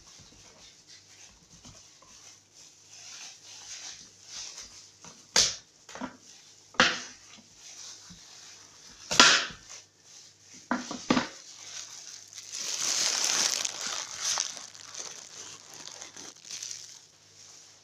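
Kitchen knife paring the tough rind off a butternut squash: rough scraping cuts with several sharp crunching cracks, the loudest about nine seconds in, and a longer continuous scrape around thirteen seconds.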